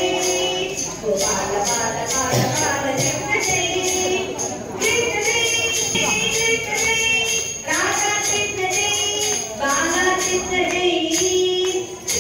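Jingling bells in a steady rhythm with singing voices, as in devotional music.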